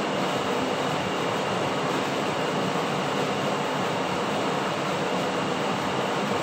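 Steady machine hum with an even rushing noise, unchanging in level.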